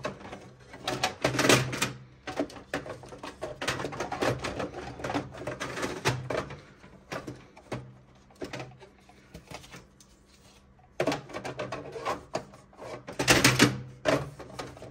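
Plastic parts of an HP Smart Tank 750 inkjet printer and its cardboard packing being handled while the packing is pulled out of the paper tray: rapid, irregular clicks, knocks and scrapes. There is a short lull about ten seconds in and a louder cluster of knocks near the end.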